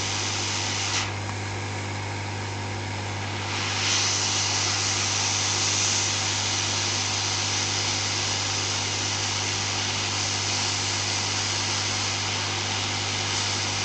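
Hot air rework station blowing a steady hiss over a circuit board, with a low fan hum, while it reflows solder under a small surface-mount filter. The higher part of the hiss drops away about a second in and comes back about three and a half seconds in.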